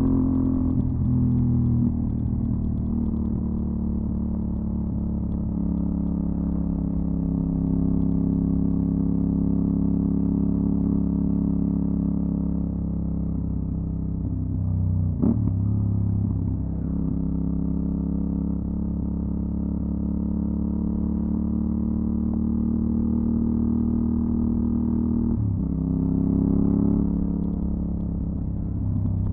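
Aprilia Dorsoduro 750 Factory's V-twin engine running through a LeoVince SBK exhaust at a mostly steady cruise. The pitch dips and rises briefly about 15 seconds in and again about 25 seconds in.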